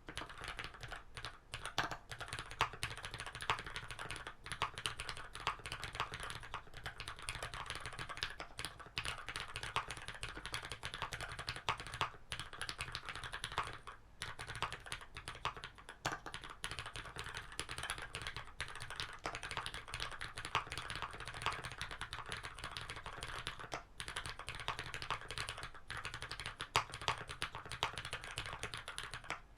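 Fast, continuous typing on a custom mechanical keyboard with lubed Cherry MX Black linear switches in a brass plate, capped with GMK keycaps, with a few brief pauses.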